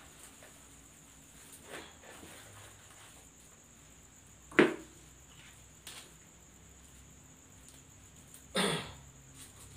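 Quiet handling noises as artificial flower stems are worked into a plastic-wrapped foam block in a vase: a few scattered soft knocks and rustles, the loudest a sharp click about halfway through, and a brief louder noise near the end.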